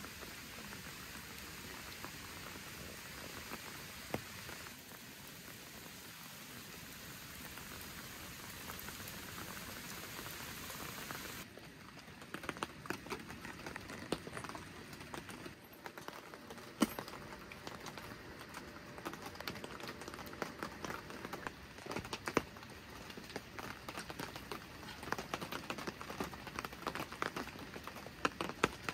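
Rain falling: a steady, even hiss. About eleven seconds in it changes abruptly to a lighter patter of separate drops tapping irregularly.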